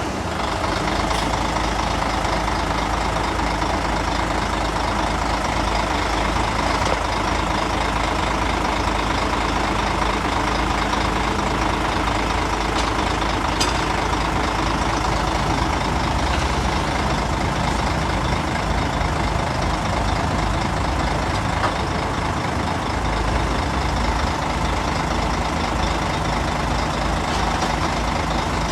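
Heavy diesel engines of earthmoving machinery, a bulldozer and dump trucks, running steadily at work.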